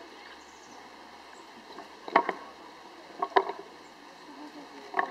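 Rock knocking against a stone slab as a gelada shifts it: a pair of sharp clacks about two seconds in, a short cluster about a second later, and one more near the end.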